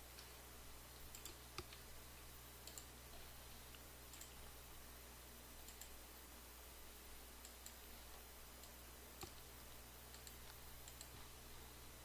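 Near silence with faint, scattered computer mouse clicks, several in quick pairs, over a low steady hum.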